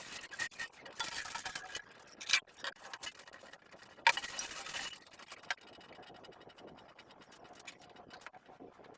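Dishes being washed by hand: scrubbing and scraping, with short bursts of hiss and sharp clinks and knocks of crockery. The loudest knocks come about two and a half and four seconds in.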